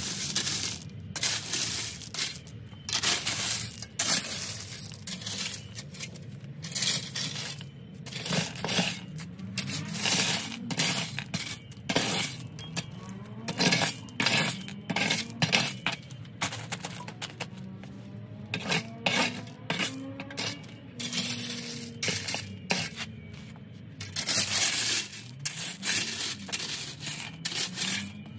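Small landscape rocks being tipped and scattered by hand around a freshly laid paver, clattering and clinking against one another in irregular bursts.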